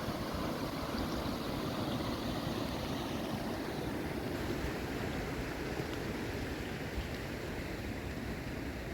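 Steady rush of fast river water from the Lachine Rapids, with an uneven low rumble of wind on the microphone.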